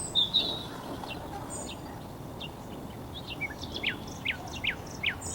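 Small birds chirping: a loose scatter of about a dozen short, high notes, most of them sliding quickly downward, over a faint outdoor background hiss.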